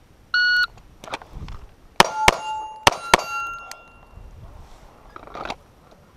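A shot timer's start beep, then about a second and a half later four 9mm pistol shots from a Wilson Combat CQB 1911, fired as two quick pairs. Each pair is followed by steel targets ringing.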